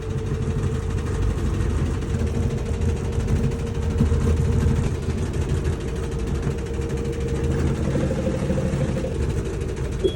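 Washing machine running with a loud, steady low rumble and a constant hum: the abnormal noise and vibration of a noisy, vibrating washer.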